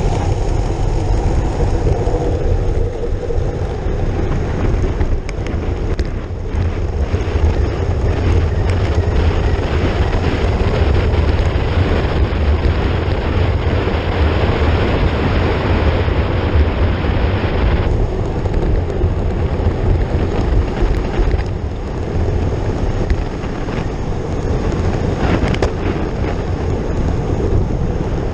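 Wind buffeting a GoPro's microphone on a road bike riding at about 65 km/h: a loud, steady rumble with hiss. The hiss grows brighter for several seconds mid-way, then drops off suddenly.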